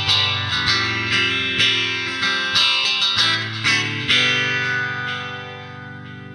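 Electric guitar fitted with an EMG DG-20 pickup set, played on the neck pickup with a clean, sustained tone. Picked notes and chords come about twice a second, then a final chord rings out and slowly fades from about four seconds in.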